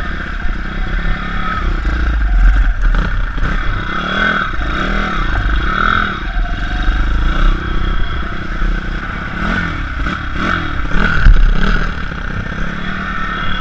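Small pit bike engine revving up and down as the bike is ridden, its pitch rising and falling again and again, with heavy wind rumble on the helmet-mounted microphone.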